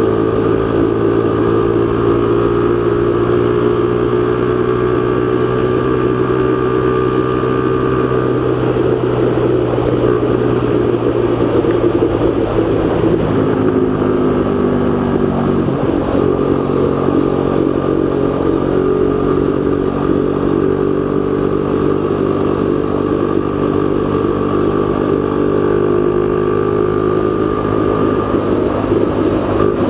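Z200S motorcycle engine running at speed through an open-pipe Akrapovic Evo GP exhaust, a steady deep tone. About a third of the way in the pitch drops, then climbs slowly again.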